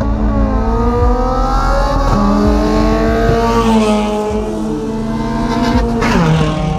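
Several car engines revving hard under acceleration, their pitch climbing and falling, with a sharp drop in pitch about six seconds in, over another engine running steadily.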